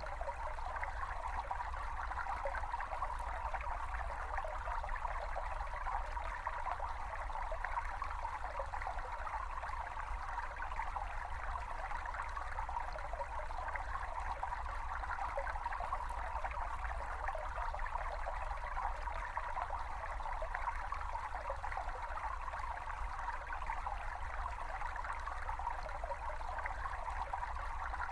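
A small brook babbling and trickling steadily, a recording of natural stream sound, with a low rumble underneath.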